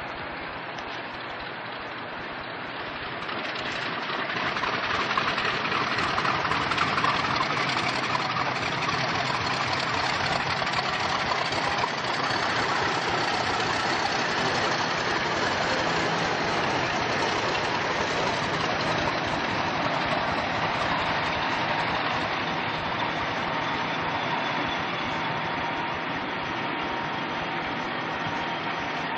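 English Electric diesel locomotive engine running steadily, growing louder about four seconds in and then holding, with a faint whistle in the second half.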